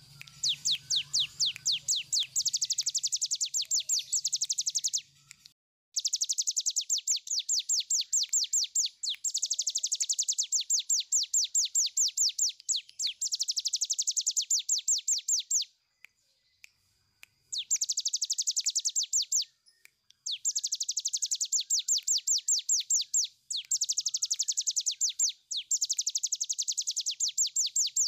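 Cigun (a prinia) singing its long 'ngebren' song: a rapid, chattering trill of high, evenly repeated notes, running for several seconds at a stretch, with brief breaks about 6, 16 and 20 seconds in.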